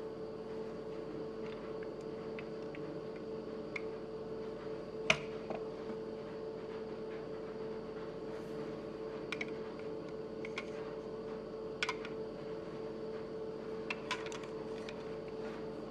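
Small clicks and taps of die-cast toy cars being handled and set on a tabletop, with one sharp click about five seconds in and a little cluster of clicks near the end, over a steady hum.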